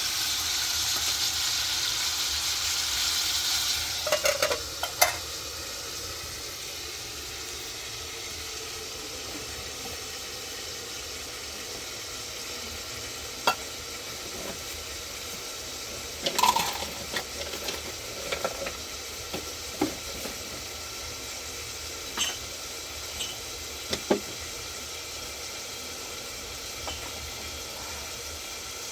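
Cooking sounds: a louder hiss for the first four seconds, then a steady faint sizzle with scattered clinks and knocks of a utensil against a pot or pan.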